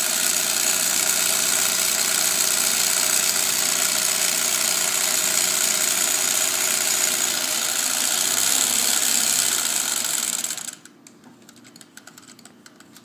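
Singer 301A sewing machine's gear-driven motor running steadily as it sews a short, fine straight stitch through cotton fabric. About three-quarters of the way through the machine stops, leaving only a few faint clicks.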